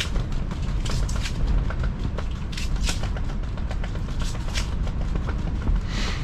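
Strong wind buffeting an ice-fishing shelter: a steady low rumble with frequent sharp snaps and rattles as the shelter's fabric flaps.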